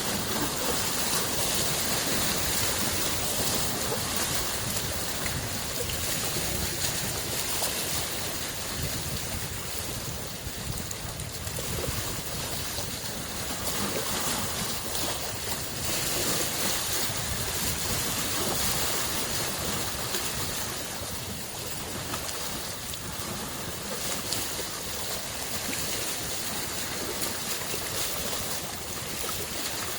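Small lake waves washing against the shore, a continuous rush of water that swells and eases gently every several seconds.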